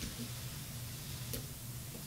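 A couple of small clicks from a small screwdriver pressing the spring-terminal tab of a breaker auxiliary/alarm switch while a wire is pushed in, the sharpest just over a second in, over a faint steady low hum.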